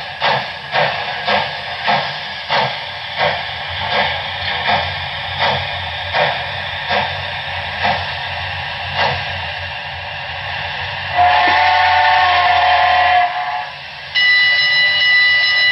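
Sound decoder of a Broadway Limited Paragon 4 HO-scale GS-4 steam locomotive model: exhaust chuffs that slow down and fade away, then a chime whistle blown once for about two seconds. A steady high-pitched tone starts near the end.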